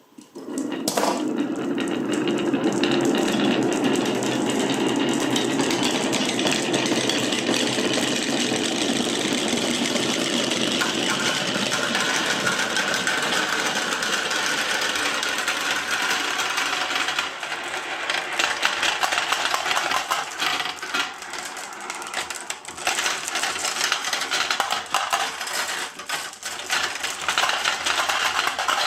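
Many glass marbles rolling and clattering down marble-run slopes, a dense, continuous rattle of small clicks that starts suddenly. A low rolling rumble in the first half gives way to sharper, more scattered clicks later.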